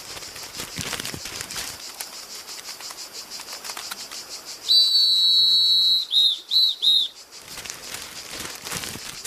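A high whistle blown once for about a second, then three short toots in quick succession, over a steady high chirring of insects.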